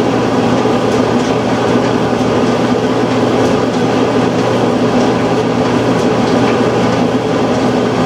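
Electric clothes dryer running on a timed high-heat cycle, its drive motor, blower and turning drum making a steady rumble with a constant low hum.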